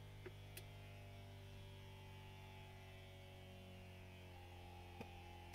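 Jaguar XJ-S's Teves ABS hydraulic accumulator pump running as a faint, steady hum with a shifting pitch, charging the accumulator, then cutting out abruptly near the end once pressure is reached. The run was long enough for the owner to think the accumulator is maybe not as bad as he feared.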